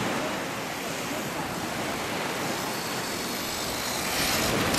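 Electric HPI Bullet RC truck driving fast over beach sand, with a louder rush about four seconds in as it passes close. Surf and wind run underneath.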